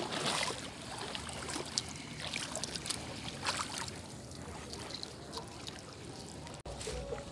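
Sea water splashing and dripping from a hoop net as it is lifted out of shallow water, in many small scattered splashes and drips. The sound drops out for an instant near the end.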